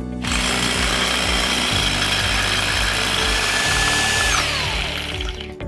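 Bosch corded rotary hammer drilling into a concrete block wall with a 5/8-inch masonry bit. It runs steadily for about four seconds, then is released and its motor whine falls away.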